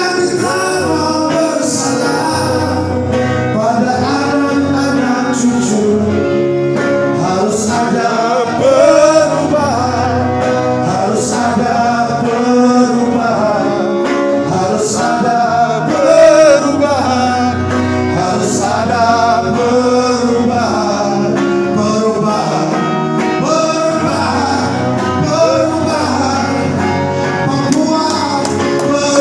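A song with a man singing over guitar accompaniment.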